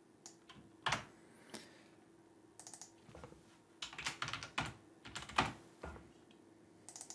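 Computer keyboard typing: a few separate key clicks, then short irregular bursts of keystrokes with pauses between, as a word is typed.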